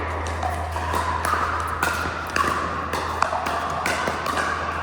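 Pickleball paddles hitting the plastic ball: a string of irregular sharp hits, the sharpest about three seconds in, over a steady low hum.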